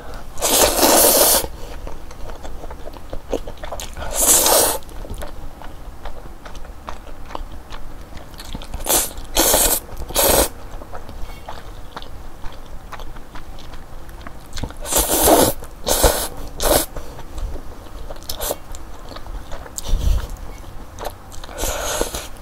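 Close-miked mukbang eating of saucy instant jjajang ramyeon (black-bean noodles): several long, noisy slurps of noodles, the first and longest at the start and others spread every few seconds, with wet chewing in between.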